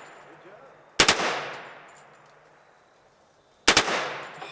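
.45-calibre gun fired on full auto in two short bursts of two or three shots each, about a second in and near the end, each burst trailing off in a long echo.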